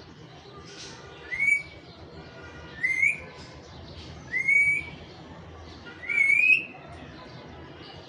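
Four short rising whistles, about a second and a half apart, over a steady background hum.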